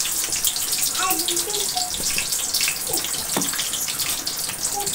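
A steady rush of water with splashing in a plastic bowl as fried besan bhallay are soaked in water and pressed by hand.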